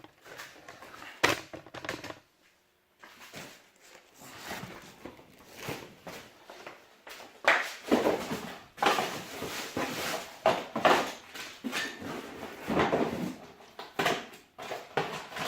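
Irregular knocks, scrapes and rustles of car parts and their packaging being handled and set down, sparse at first and busier in the second half.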